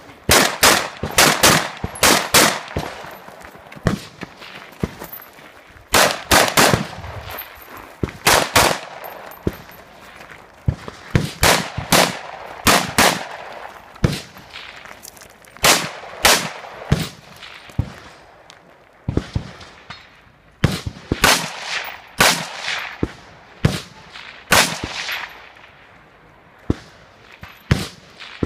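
Semi-automatic rifle fired in quick pairs and short strings of shots, each shot with a short echo. Gaps of a second or two fall between the groups.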